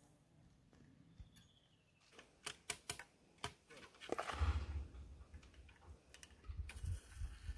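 Small clicks and taps of metal charge tubes handled at the muzzles of a muzzle-loading double shotgun, then a short rushing pour of a charge into one barrel a little past halfway, with more clicks and low bumps of handling near the end.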